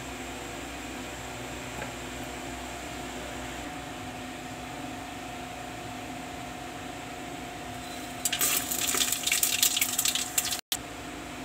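Whole spices sizzling and crackling in hot oil in an aluminium pressure cooker, a loud burst of about two and a half seconds starting about eight seconds in and cut off abruptly. A steady low hum runs underneath.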